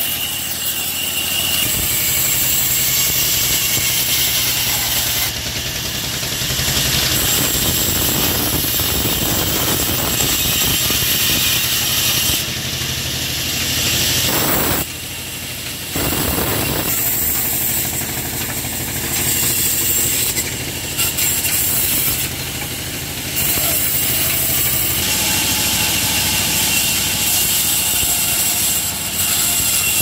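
Large vertical band saw running and cutting through thick tree trunks and stumps: a steady high whine under loud sawing noise that swells and eases as each piece is pushed through the blade, with brief lulls between cuts.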